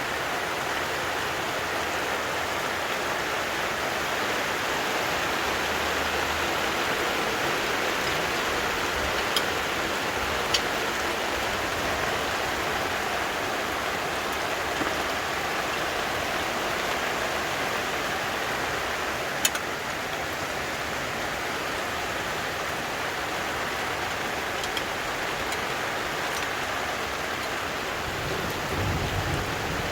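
Steady rain falling, an even hiss, with a few brief sharp clicks scattered through it.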